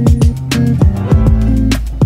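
Background music with a steady beat, deep bass thumps and plucked guitar-like notes.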